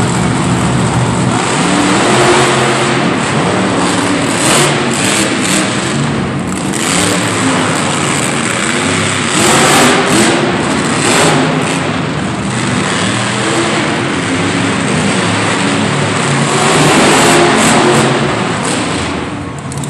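Two monster trucks' engines revving hard as they race, the pitch climbing and dropping with the throttle, with several louder full-throttle swells, echoing around an indoor arena.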